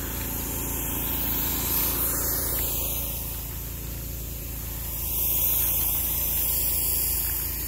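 An engine running steadily at idle, a low drone with an even, fast pulse, under a steady high hiss.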